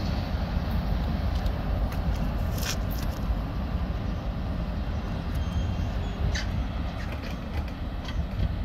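Local freight train moving away down the track: a steady low rumble, with a couple of faint clicks.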